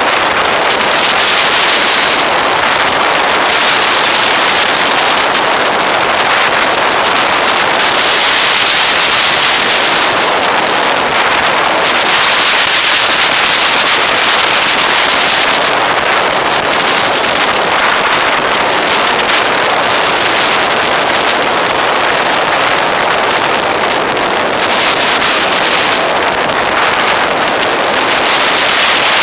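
Wind rushing over the microphone of a camera mounted on a moving motorcycle: a loud, steady hiss that swells and eases every few seconds, with no distinct engine note.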